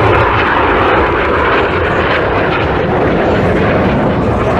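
Jet noise from Red Arrows BAE Hawk T1 aircraft: a loud, steady rushing noise of jet engines in flight.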